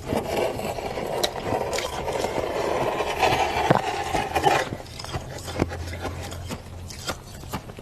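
Freezer frost crunching and squeaking in a dense, continuous run for about four and a half seconds, then a few sparser crunches and clicks.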